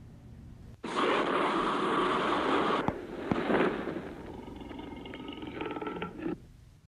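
Dragon sound effect for a clay dragon taking flight: a loud, noisy rush that starts suddenly about a second in, eases after about two seconds, and then fades out near the end.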